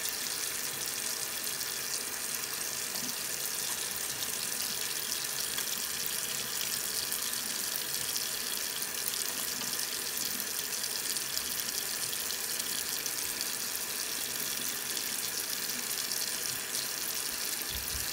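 Tap water running steadily from a bathroom faucet into the sink basin, an even, unbroken splashing hiss.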